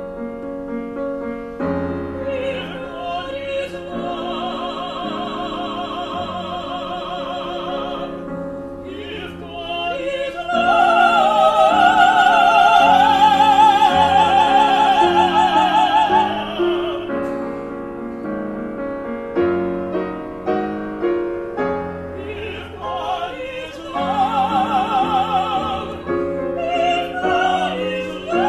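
Soprano and tenor singing an operatic duet over piano, both voices with a wide vibrato. About ten seconds in, the two voices join loud and high for some six seconds, then fall back to softer phrases.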